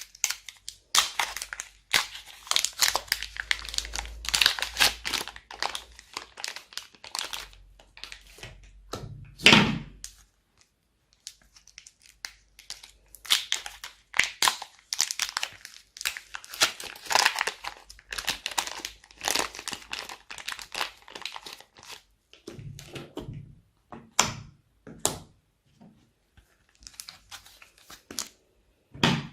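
Slime being mixed and squished, making long runs of dense crackling and popping clicks, with a heavier thud about nine seconds in and sparser pops in the last few seconds.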